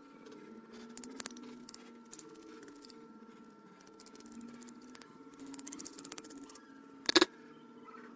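Small metal tool tapping and scraping on an LED bulb's circuit board: scattered light clicks and ticks, a quick run of them a little past the middle, and a sharp double click about seven seconds in, over a faint steady hum.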